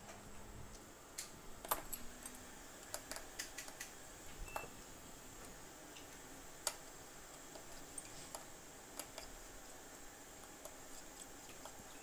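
Small, sharp, irregular clicks and taps of precision hand tools working on an opened iPhone 7 Plus, over a faint steady high-pitched whine.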